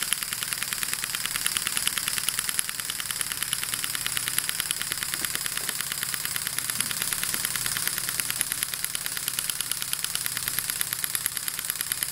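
Homemade single-cylinder model steam engine, machined from aluminium and brass, running steadily at speed: a fast, even chatter of exhaust puffs and clicking from the valve gear.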